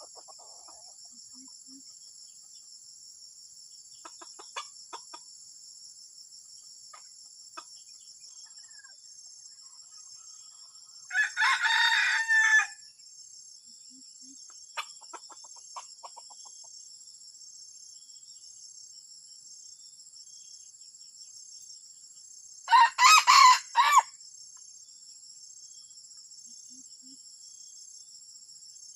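Junglefowl cock crowing twice, once about eleven seconds in and again near twenty-three seconds, each crow lasting about a second and a half, with a few faint short calls between. A steady high insect drone runs underneath.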